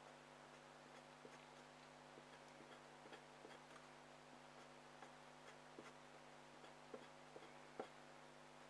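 Faint, short scratching ticks of a drawing tip on paper as an area is shaded in quick hatching strokes, the sharpest about seven and eight seconds in, over a steady low hum.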